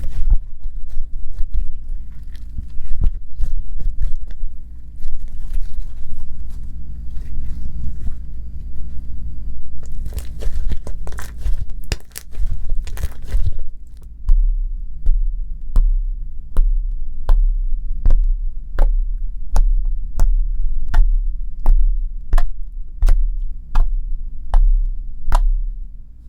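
Homemade toothpaste-and-salt slime being squished, stretched and poked by hand: wet crackling and tearing sounds, then from about halfway an even run of sticky pops, roughly one and a half a second.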